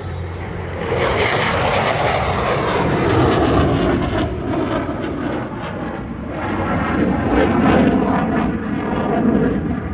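Fighter jet engine roar as the jet makes a pass, swelling about a second in, easing off for a moment, then growing loud again near the end.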